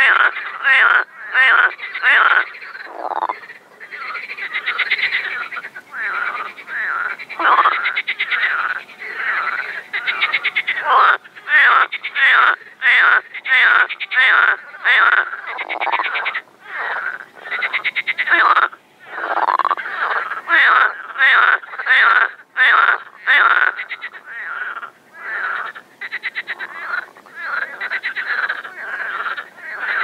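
Pond frogs croaking in spring mating calls, short croaks following one another about every second and overlapping into a steady chorus.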